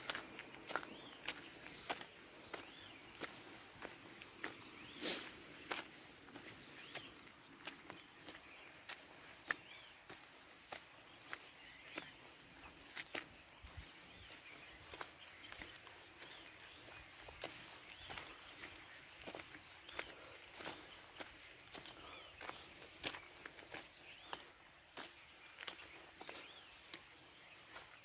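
Steady high-pitched insect chorus, like crickets, with scattered sharp clicks and short chirps over it.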